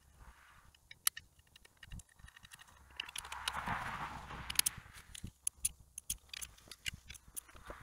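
Faint, scattered clicks and clinks of hand tools being handled on an engine, with a soft rubbing about three to four seconds in.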